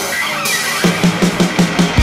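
Background music. About a second in, a fast run of short, repeated low notes begins.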